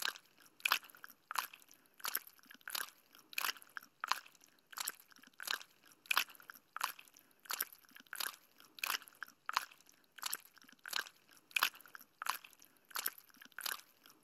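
Gum being chewed, in a steady rhythm of about three chews every two seconds.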